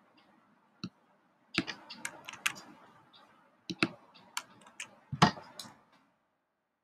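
Computer keyboard keys and mouse clicking: irregular sharp clicks coming in short clusters, the loudest a few seconds in.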